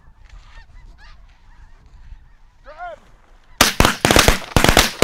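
Snow geese calling overhead in a flock, many high, nasal calls overlapping. About three and a half seconds in, several shotguns fire together, a rapid volley of eight or so blasts within about a second and a half.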